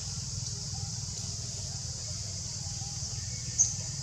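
Steady high-pitched hiss of outdoor background sound, with a low rumble beneath it. One short, sharp high squeak comes about three and a half seconds in.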